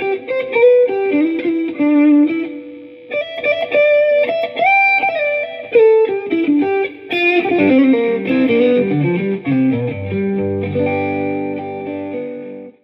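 Electric guitar played through a ShepTone Good Enough For Leo single-coil pickup in the neck position, with melodic single-note phrases and bent notes. About two-thirds through, the playing settles on a held chord that rings out and is cut off just before the end.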